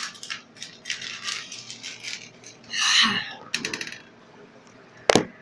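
Rattling, scraping and clicking of an arm reaching up inside a vending machine among the metal spiral coils and snack packets, with a louder rustling scrape about three seconds in and one sharp knock near the end.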